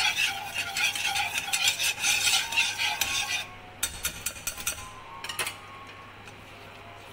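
Wire whisk stirring a thick white sauce in a pan: rapid scraping and clicking of the wires against the pan. It stops abruptly about halfway through, followed by a few light taps.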